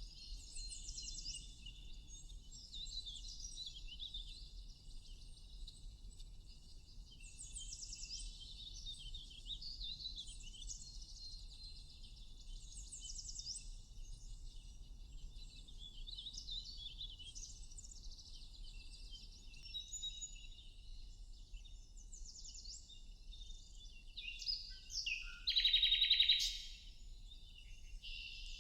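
Several songbirds chirping and singing in quick, overlapping high calls, with one louder, lower call about 25 seconds in.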